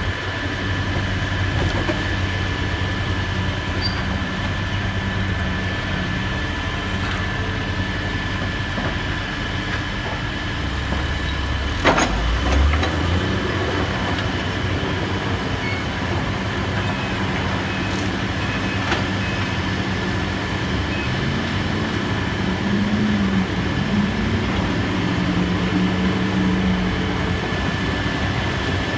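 Heavy demolition machinery running steadily with a low engine hum, with one sharp clank about twelve seconds in and the engine note shifting up and down near the end.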